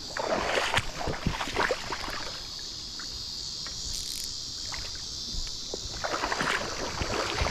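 Water splashing and sloshing in bursts as a hooked catfish is pulled in at the water's edge, heaviest in the first two seconds and again near the end. Under it runs a steady, high insect buzz.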